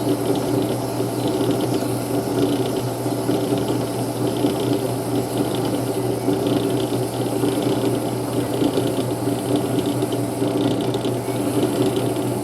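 Small metal lathe running steadily, its gears and drive giving a continuous rattling chatter.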